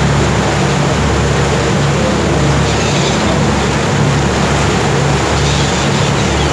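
A cruise boat's engine running steadily as a low hum with a slight regular pulse, under a constant rush of wind and churning wake water.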